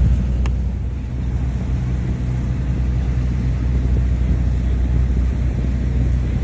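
Engine of a small passenger ferry boat running steadily while under way: a low, even drone.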